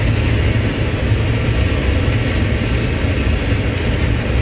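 Forage harvester chopping hay, heard from inside its cab: the engine and chopping machinery running steadily with a constant low rumble.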